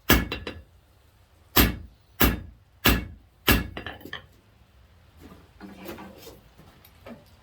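Blacksmith's hammer striking hot steel on an anvil, drawing out a taper. One ringing blow at the start is followed by a few light taps, then four evenly spaced blows come about two-thirds of a second apart, and softer clinks follow.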